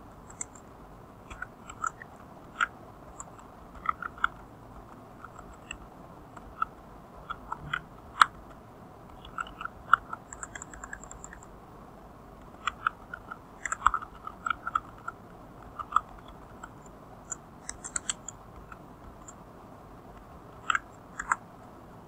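Computer keyboard typing: irregular key clicks in short runs with pauses between them.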